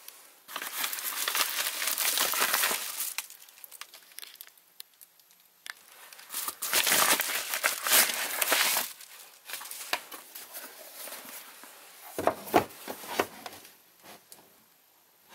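Plastic packaging crinkling and rustling as a boxed phone is unwrapped and pulled out, in two long bouts. Near the end come several short knocks as the cardboard box is handled on a wooden table.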